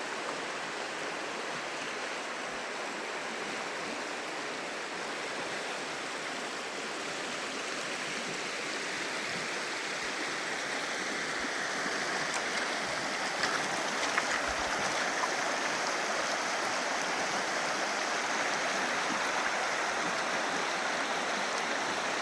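Waddell Creek's water rushing steadily over rocks, a continuous even hiss that grows a little louder about halfway through.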